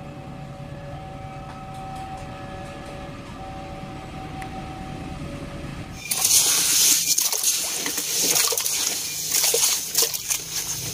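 A train running past with a steady low rumble, its horn sounding two held notes in long blasts. About six seconds in, this gives way to a hand scooping and squishing wet sand in a plastic toy dump truck bed, a gritty, wet scraping.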